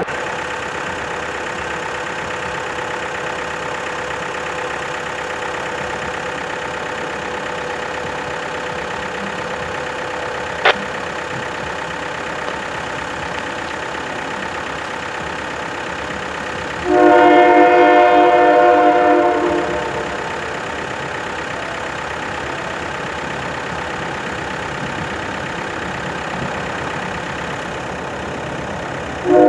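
A locomotive's multi-chime air horn sounds one long blast about 17 seconds in, chords of several notes at once, and starts another blast right at the end. Under it a steady rumble from the approaching train, with a single sharp tick about 11 seconds in.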